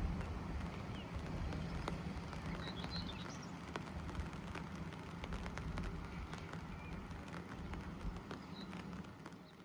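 SD85 diesel locomotive's engine running with a steady low drone, with a few birds chirping faintly.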